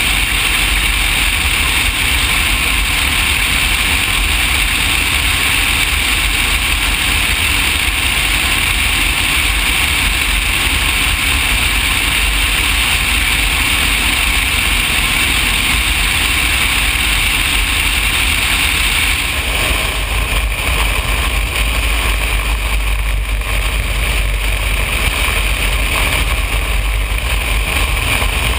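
Cessna 180 floatplane's engine and propeller, a loud, steady drone. About two-thirds of the way through, the sound shifts and its higher hiss falls away.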